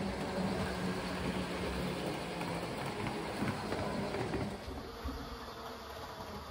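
Model train running along the layout track: a small electric motor humming, with wheel and track noise. It is louder for the first four and a half seconds and then eases off.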